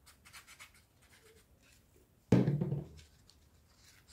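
Light rustling and scraping of hands handling small craft pieces, with one loud thud about two seconds in.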